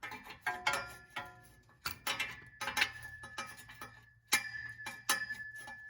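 Metal hand tools clinking and knocking, a socket and bar being fitted onto a nut: about ten irregular sharp clinks, several ringing on briefly, with one louder ringing clank about four seconds in.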